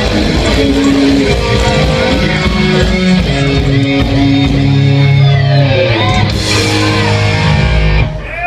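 Live rock band playing the closing bars of a song, heavy electric guitar and bass over drums, with notes sliding down in pitch partway through; the music stops about eight seconds in.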